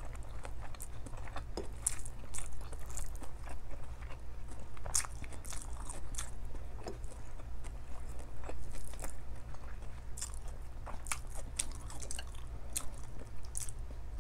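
Close-up mouth sounds of a person chewing rice and fish: irregular wet clicks and smacks. A steady low hum runs underneath.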